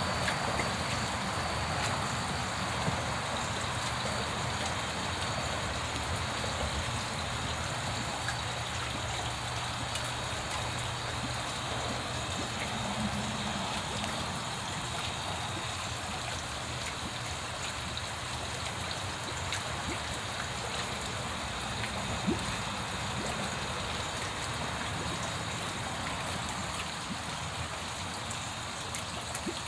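Steady water noise, an even trickling and splashing with a few small drip-like ticks.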